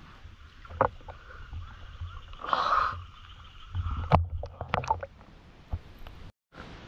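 Water sloshing and sharp knocks as a freshly speared catfish is handled on the spear shaft close against the camera, with a half-second rush of water about two and a half seconds in.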